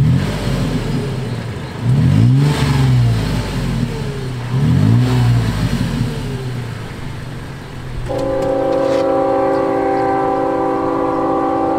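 Toyota 4Runner's 4.0-litre V6 through a Borla S-Type stainless cat-back exhaust, blipped three times from idle, each rev climbing and dropping back. About eight seconds in, a train horn on the truck starts and holds a steady multi-tone chord.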